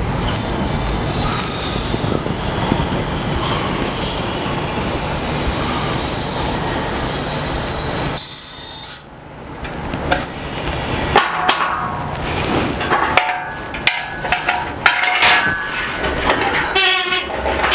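Engine hoist lowering a heavy load on its hydraulic ram: a steady hiss with a high squealing whine that cuts off abruptly about nine seconds in. Then irregular clanks and rattles of chain and steel as the loaded hoist is pushed across the concrete floor.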